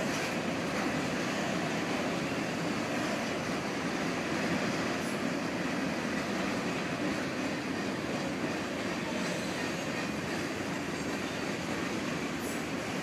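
Mixed freight train of autorack and covered hopper cars rolling past at a steady speed: a continuous rumble and rattle of steel wheels on rail, with a faint wheel squeal over it.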